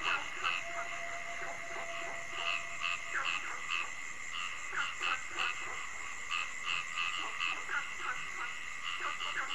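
A chorus of frogs calling, short croaks repeated irregularly a few times a second, over the steady high drone of crickets.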